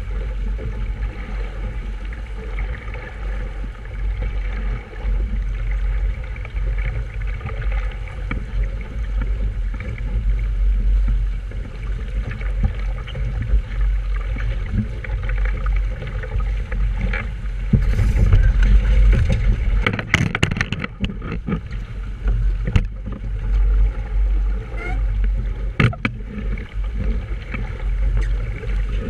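Wind rumbling on the microphone over water sounds aboard a small sailboat. A run of sharp knocks and rattles comes about two-thirds of the way through.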